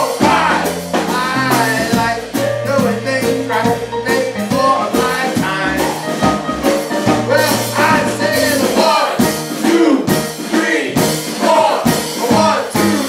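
A live band playing a bluesy jazz song, with singing over a bass line that moves from note to note.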